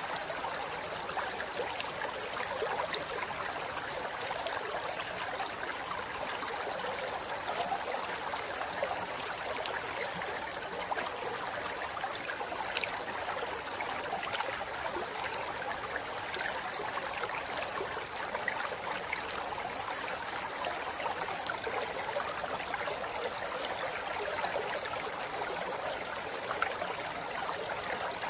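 Shallow river flowing over rocks: a steady rushing with small splashes and gurgles.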